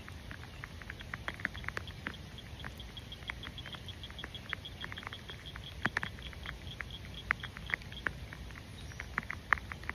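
Rain pattering, with irregular drops striking close by, over a low steady rumble. From about a second in until near the end, a faint, high, evenly spaced ticking runs at about six ticks a second.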